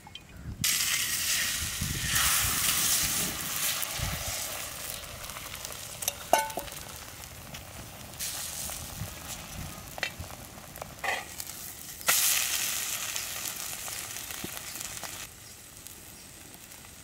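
Oil and egg omelette batter sizzling on a hot iron tawa. The sizzle starts suddenly about half a second in and swells again several times, with a few light clinks of a spoon against the pan, and it falls away near the end.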